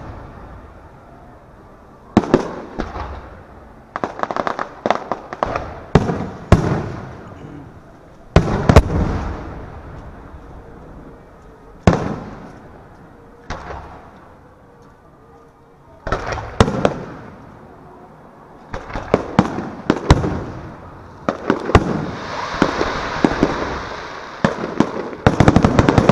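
Aerial fireworks shells bursting overhead: sharp booms at irregular intervals, each trailing off in a rolling echo. The bursts come thicker and faster in the last several seconds.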